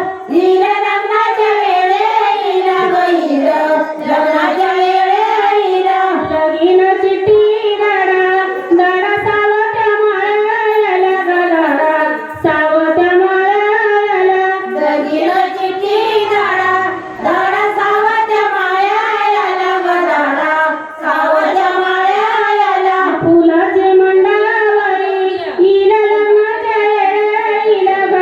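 A woman singing a traditional Marathi wedding song (lagna geet) solo in a high, wavering melodic line, pausing briefly for breath between phrases.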